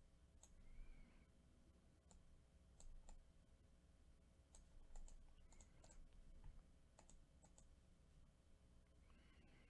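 Near silence: quiet room tone with about a dozen faint, sharp clicks scattered irregularly.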